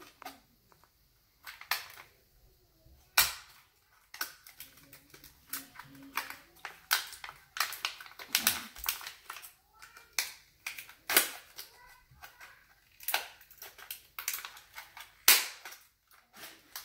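Crinkly toy packaging crackling and clicking as it is torn open and handled, with irregular sharp crackles.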